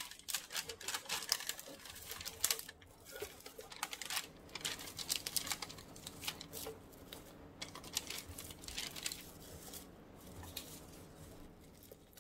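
Crinkling and rustling of foil-lined plastic seaweed packets being handled and opened while dried seasoned seaweed sheets are pulled out, a stream of irregular crisp crackles that thins out near the end.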